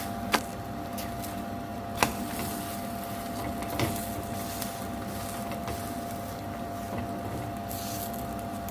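Paratha cooking in butter on a hot tawa griddle: a steady hum with one constant tone under an even hiss, and three sharp knocks in the first four seconds, about two seconds apart.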